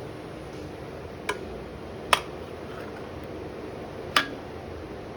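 Three sharp clinks of kitchen utensils while tea is being made. They come about a second in, about two seconds in (the loudest) and about four seconds in, over a steady low background.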